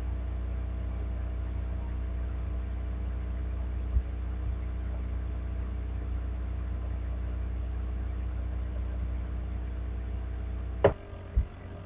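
Steady low hum with faint steady tones above it, and a brief click about four seconds in. Near the end a sharp click cuts the hum off, and another click follows half a second later.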